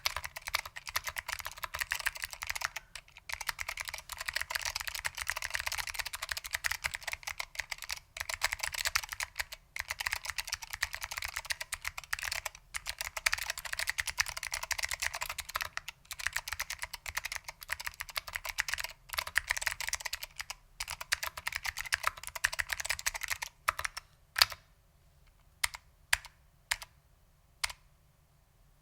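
Fast continuous typing on a mechanical keyboard with clicky SKCM Blue Alps switches and PBT keycaps, dense keystrokes broken by short pauses. Near the end the typing stops and only a few single key presses follow.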